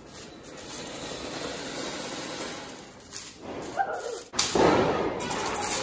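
Ground fireworks going off: a steady hiss of a sparking fountain-type cracker, then a sudden, much louder burst of crackling about four and a half seconds in.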